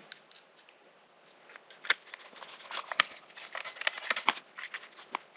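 Scattered small clicks and taps, densest in the middle, from hand tools and the plastic handle of a Porter-Cable router being worked as the handle is screwed back on.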